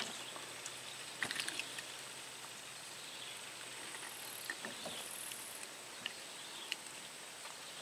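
Quiet waterside ambience: a steady high-pitched insect drone, with a few small clicks and knocks, a cluster of them a little over a second in.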